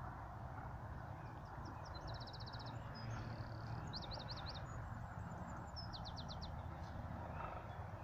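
A small bird singing: three quick runs of rapid high notes, each under a second long and about two seconds apart, over a steady low background rumble.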